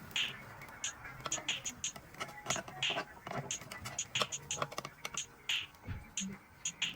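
Many quick, light, irregular clicks and taps, with a soft hiss coming back about every second and a half.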